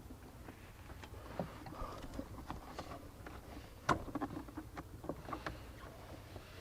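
Hood release cable being wiggled and pulled by hand under the dash: scattered light clicks, rattles and scraping, with one sharper click a little under four seconds in.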